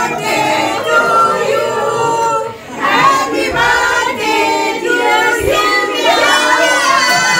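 A group of voices singing together, several pitched voices overlapping.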